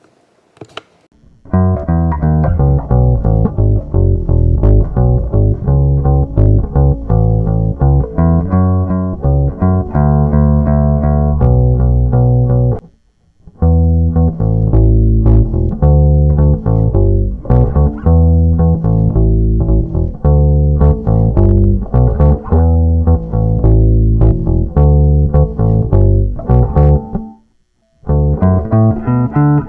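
Electric bass guitar played through a Peavey MAX bass combo amp: a run of plucked bass notes, breaking off briefly about 13 seconds in and again near the end before starting up again.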